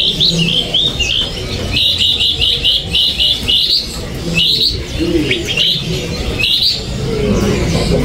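Caged songbird singing a string of short, sharp, high notes. Around the middle they come in a quick run of several a second, and near the start and end they are more spaced out, over a steady low background rumble.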